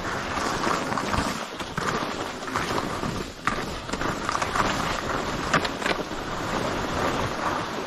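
Skis hissing and scraping over chopped-up, tracked snow on a downhill run, mixed with wind rushing over the microphone, with a few sharp clicks from the skis.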